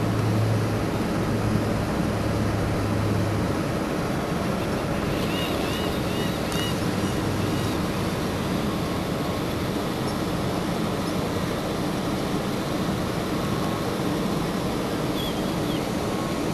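Steady rushing wind and road noise of a moving car, with a low hum that fades out after about three seconds and a few short high chirps about five to seven seconds in.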